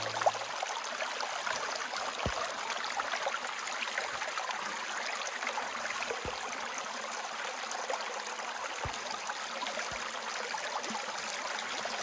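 Small, shallow forest brook running and babbling over stones with a steady rush of water.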